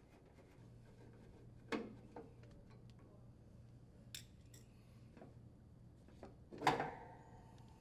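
Faint clicks and light metal clinks of a screwdriver working out the screws of the blower bearing cover, with a sharper knock about two seconds in. Near the end the sheet-metal bearing cover is pulled off with a louder metallic clank that rings briefly.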